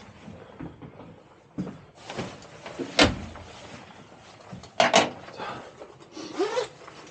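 Door and fittings of a tram driver's cab being handled: a sharp slam about three seconds in, then two quick knocks close together about two seconds later, with smaller clunks between.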